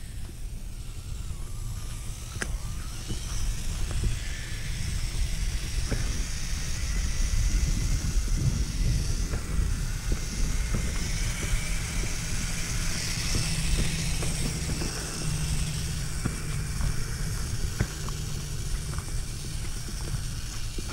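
Axial Capra RC rock crawler driving over pine needles and gravel, its electric motor and gears giving a faint whine that rises and falls with the throttle. Scattered ticks and crunches sound over a steady low rumble.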